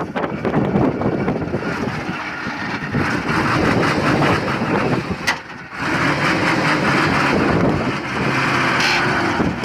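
A vehicle engine running, with a brief break about five and a half seconds in.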